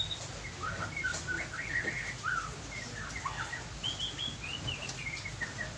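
Small birds chirping and twittering in quick short notes, over a steady low hum.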